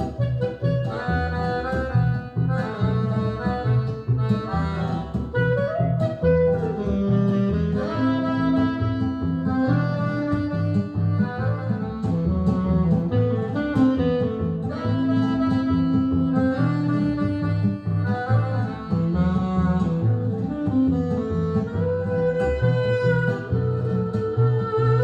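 Instrumental music with a held, horn-like melody over a bass line, played back through Monitor Audio Monitor 3 three-way floor-standing speakers.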